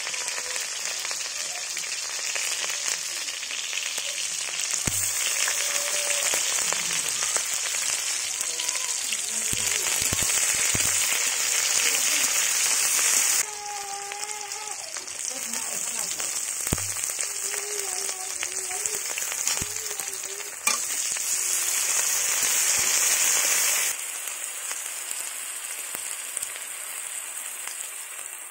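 Sliced onions and garlic frying in hot oil in a wok, a steady sizzle that drops and swells abruptly a few times, with a few soft knocks.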